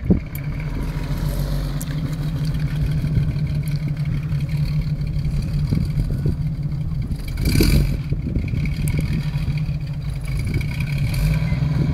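Jeep Wrangler engine running at a steady low note as it crawls slowly over loose sand mounds, with one brief louder rush of noise a little past halfway through.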